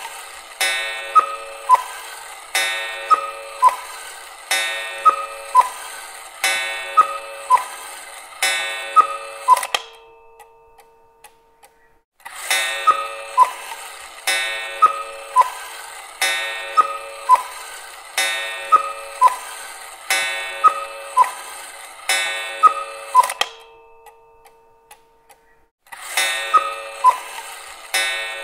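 Cuckoo clock calling "cuck-oo" over and over, each call a higher note dropping to a lower one, about one call every two seconds. The calls come in runs of about six, with a pause of a couple of seconds between runs.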